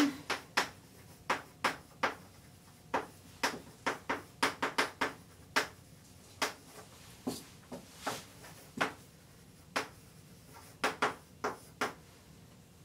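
Chalk on a blackboard as words are written out by hand: a string of short, irregular taps and brief scrapes.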